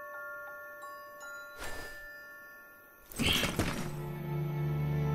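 Background score: soft glockenspiel-like notes ringing and fading away. About three seconds in comes a short rushing noise, and then a low, sustained chord comes in and swells.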